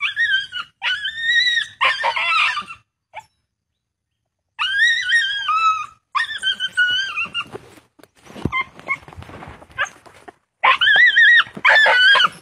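A dog caught in a trap set for jungle fowl, yelping and whining in distress: a string of high, wavering cries, each under a second long, broken by a short pause and a stretch of rustling and scuffling in the brush, then more loud cries near the end.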